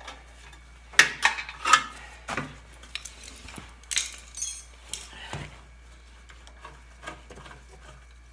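Metal clinks and knocks as parts are handled and fitted back onto a snowblower's 10 HP Tecumseh engine: a series of sharp clanks, the loudest about a second in, thinning out after about five seconds.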